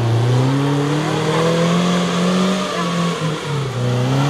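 Suzuki Jimny SJ410's one-litre four-cylinder engine revving while driving, its pitch climbing over the first couple of seconds, dipping briefly about three seconds in, then rising again.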